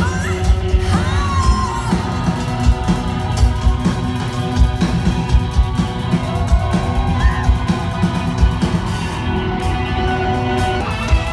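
Live rock band playing loud in a concert hall, heard from within the crowd: a steady drum beat under keyboards, with a woman's voice singing and yelling short sliding lines over it.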